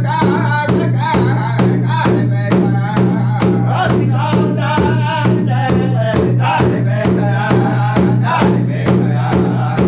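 A powwow drum group singing together in high voices while striking one large hide-covered powwow drum in unison with beaters, a steady beat of about three strokes a second.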